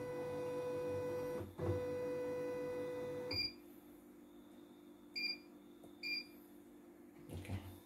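CNY E900 computerized embroidery machine: its embroidery unit's motors whine steadily while moving the large hoop, with a brief pause partway, then stop. Its control-panel keys give three short high beeps as buttons are pressed.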